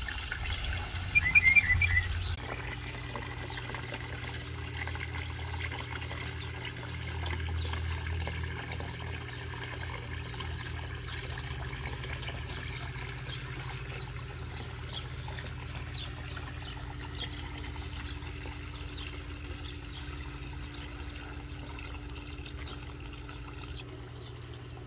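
A northern mockingbird gives a short burst of quick chirping notes in the first couple of seconds. Then a small pond waterfall spillway pours steadily into the pond, an even trickling splash over a faint steady hum.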